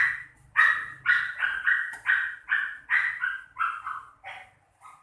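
A puppy barking over and over in short, high-pitched yaps, about two or three a second, growing weaker near the end.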